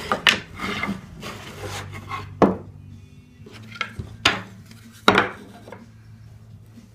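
Pine boards being handled and set down on a workbench: a few sharp wooden knocks and clatters, irregularly spaced, over a low steady hum.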